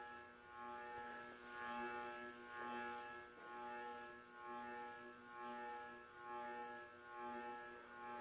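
Envirofan Silverline industrial ceiling fan's motor running with a steady electrical hum that swells and fades about once a second.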